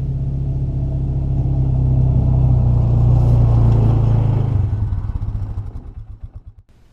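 A motor vehicle's engine running, rising in loudness, then shut off: its firing breaks into separate pulses that slow and stop near the end.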